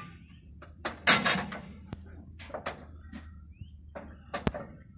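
Scattered clunks and clicks from the controls of a 1926 Rumely M 20-35 tractor being worked by hand. The loudest clunk comes about a second in, and a sharp click comes near the end.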